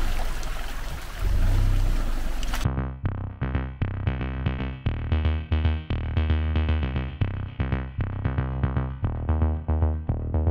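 A Rosomakha Extreme Plus ATV driving through a muddy puddle, its engine running under splashing water, cut off suddenly about two and a half seconds in. Electronic background music with a steady drum-machine beat takes over for the rest.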